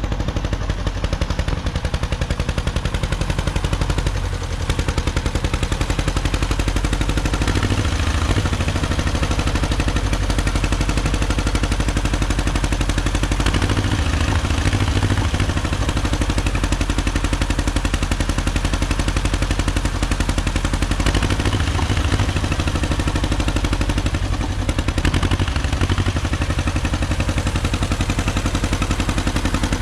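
John Deere two-cylinder tractor engine running steadily, its exhaust beating in a fast, even train of pulses.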